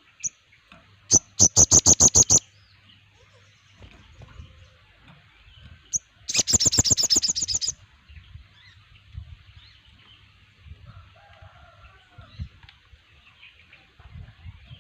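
Sogon birds singing: two loud, fast trills of evenly repeated high notes, each about a second and a half long and opened by a single short note, over the faint chatter of other birds.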